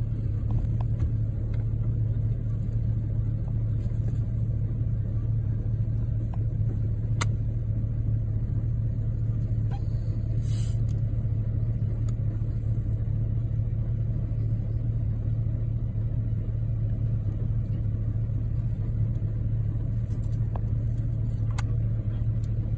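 Steady low rumble of a car idling, heard from inside the cabin, with a few faint clicks and knocks.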